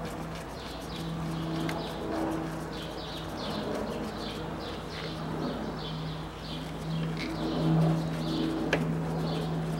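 Small birds chirping in short high notes, a few a second, over a steady low hum. Twice there is a light click as a screwdriver works the hose clamps on a car's air-intake duct.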